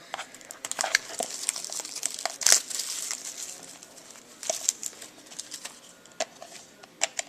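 Trading card packaging being crinkled and torn open by hand: irregular rustling with scattered sharp clicks, and louder crinkly bursts about two and a half and four and a half seconds in.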